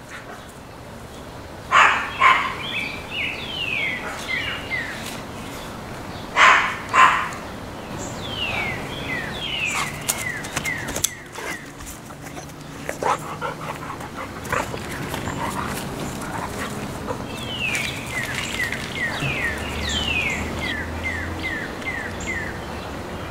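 Bernese Mountain Dog puppy barking during play: two loud pairs of barks, one about two seconds in and one about six and a half seconds in, with quieter scattered sounds afterwards.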